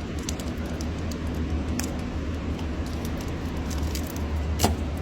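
Light plastic clicks and taps as a side turn signal lamp is handled in its fender socket, with one sharper click near the end, over a steady low hum.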